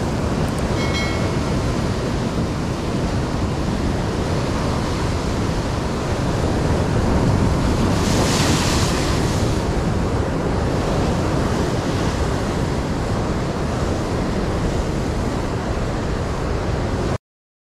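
Heavy sea surf breaking against shoreline rocks, with strong wind buffeting the microphone. A wave crashes and sprays close by about eight seconds in. The sound drops out abruptly for a moment near the end.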